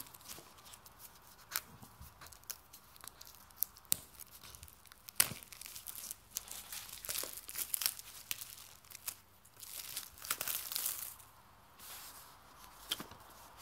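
Clear plastic wrapping being torn and crinkled by hand as a phone box is unwrapped: irregular rustling and sharp crackles, with the loudest snap about five seconds in and a longer crinkly stretch near ten seconds.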